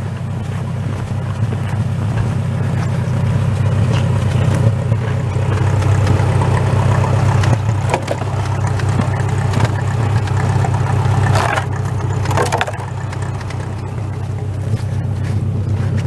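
Massey Ferguson tractor engine running steadily with a strong low hum, with two brief rattles a little past two-thirds of the way through.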